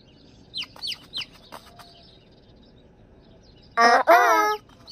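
Cartoon chicks peeping: a few quick, high, falling peeps about a second in. Near the end comes a high cartoon voice saying "uh-uh".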